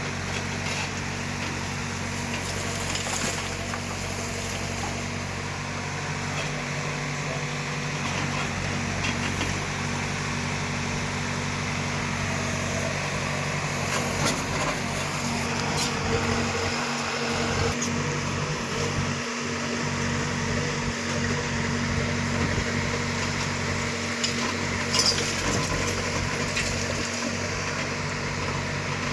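Diesel engine of heavy earth-moving machinery running steadily, with a few sharp metallic clinks.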